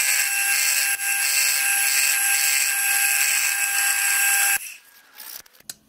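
Milling machine end mill cutting a brass motion plate, sped up eightfold so it comes out as a steady high-pitched whine. It cuts off suddenly about four and a half seconds in, followed by a few faint clicks.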